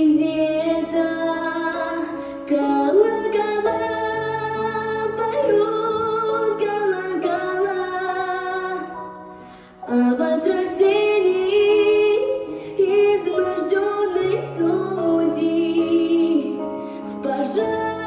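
A female voice sings a slow, sustained melody with vibrato over instrumental accompaniment. The vocal line breaks briefly just before the middle and then resumes.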